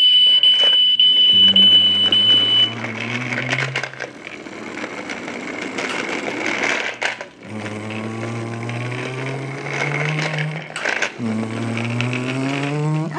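Toy truck's built-in electronic sound effects: a steady high beep that stops about three seconds in, then an engine-revving sound rising in pitch, played three times.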